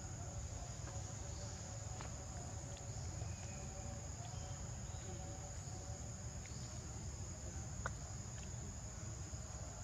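Steady, high-pitched insect chorus over a constant low rumble, with a few faint ticks.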